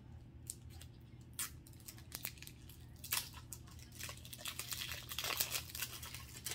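Plastic packaging crinkling and tearing as it is opened by hand. It comes as a run of rustles and sharp clicks that grows busier and louder in the second half.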